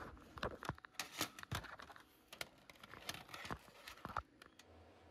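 Handling noise: a run of irregular clicks, taps and rustles as objects are moved about close to the microphone, stopping a little after four seconds, after which a faint low hum is left.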